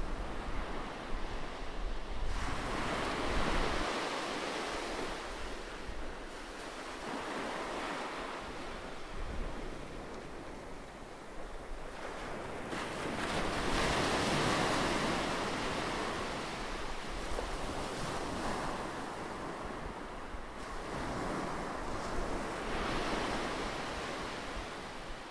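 Sea waves washing in and drawing back, a rushing surge that swells and fades every few seconds.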